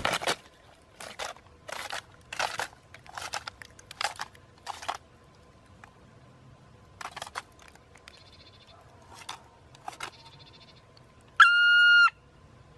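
A series of about ten sharp knocks at uneven intervals, then a single loud electronic beep of under a second, the loudest sound, near the end.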